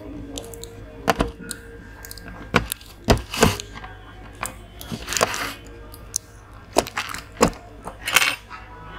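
Plastic clips and the plastic front frame of an LED TV snapping and clicking as they are pried loose: a string of sharp, irregularly spaced clicks and cracks.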